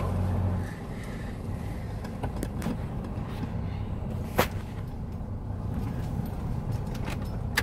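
Car cabin noise while driving slowly over a rough, grassy dirt track: a steady low rumble of engine and tyres, with a sharp knock about four seconds in and another at the end.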